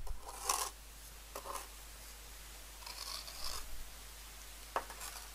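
Trowel scraping and spreading lime mortar over the face of a brick: a few short scrapes, with a sharp tap near the end.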